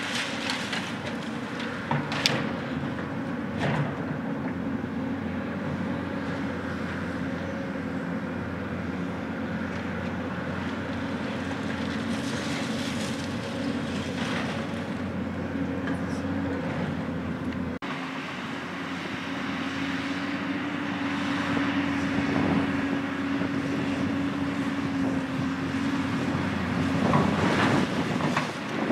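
Diesel engine of a Caterpillar tracked excavator running steadily on a demolition site, with a couple of sharp knocks a few seconds in and the engine louder in the second half.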